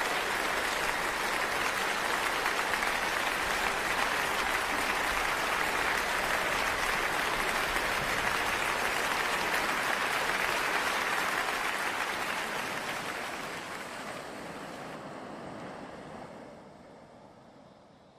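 Audience applauding steadily in a concert hall after an orchestral and choral performance. The applause fades out over the last several seconds.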